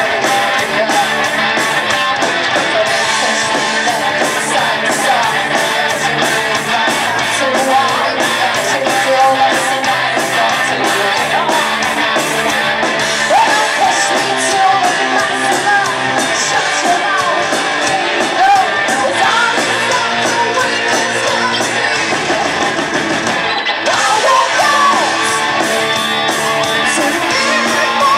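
A live rock band playing loud, with electric guitars, bass guitar and a steady drumbeat under a singer's vocals.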